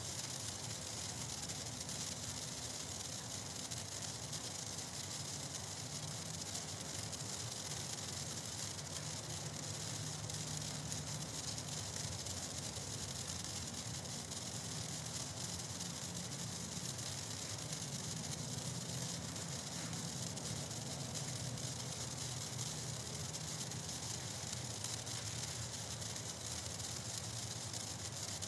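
Black Cat Neon sparkler burning with a steady, even hiss.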